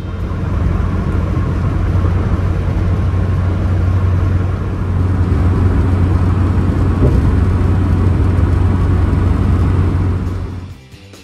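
Pickup truck cruising at highway speed, heard from inside the cab: a steady low drone with road and wind noise that stops shortly before the end.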